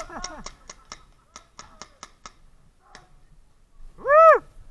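A rapid run of sharp pops from paintball markers and airsoft guns firing, about four or five a second at first, then thinning to scattered single shots. Near the end comes one loud shout whose pitch rises and falls.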